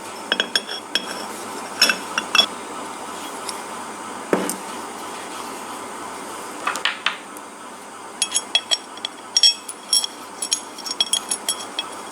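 Small metal parts of a quick exhaust valve clinking and tapping together as it is reassembled by hand, with a dense run of quick clicks in the last few seconds.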